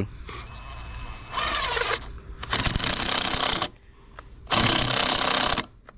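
Power screwdriver driving screws in three bursts, the last two about a second long each, with a rattling, ratchet-like mechanical sound.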